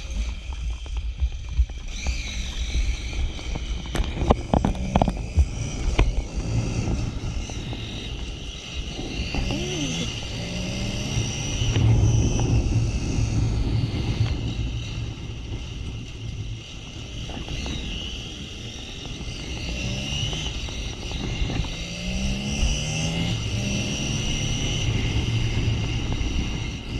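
Delivery motorcycle being ridden, its engine running under a steady rumble of wind and road noise, rising in pitch several times as it accelerates through the gears.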